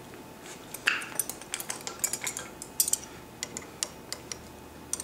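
Handling of a motorcycle's throttle cable adjusters as their covers are peeled back: a short rustle about a second in, then a scatter of light clicks and clinks.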